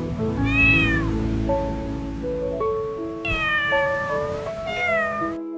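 A cat meowing three times, the middle call the longest, over light background music.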